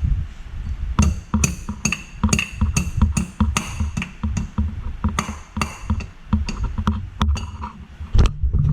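Sharp metallic knocks at a steady pace of about two a second, each with a brief ring, over a low rumble.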